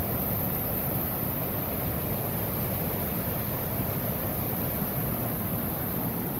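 Steady rushing of a rocky creek as the water tumbles over boulders in small rapids and cascades.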